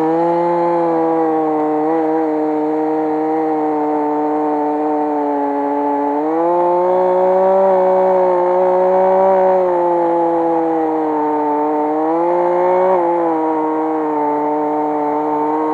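Gas chainsaw at full throttle cutting into a tree trunk, its engine note steady. The pitch lifts slightly about six seconds in and again about twelve seconds in, then settles back each time.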